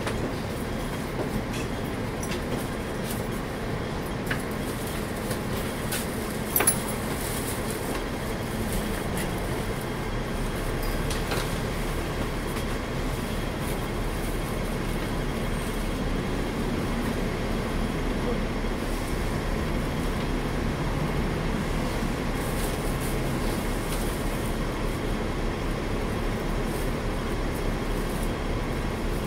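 Interior sound of a Hong Kong double-decker electric tram: a steady rumble and hum of the tram, growing slightly louder after about ten seconds, with one sharp click about seven seconds in.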